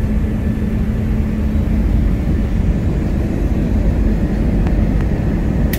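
Airliner engines and runway roll heard from inside the passenger cabin: a loud, steady rumble as the plane moves along the runway at speed.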